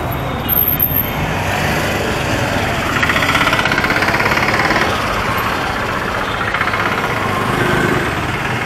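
Street traffic: the engines of passing vehicles run steadily, and one engine's rapid, even pulsing is loudest from about three to five seconds in.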